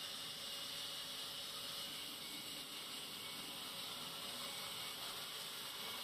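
Sawmill bandsaw running: a steady, even hiss that neither rises nor falls.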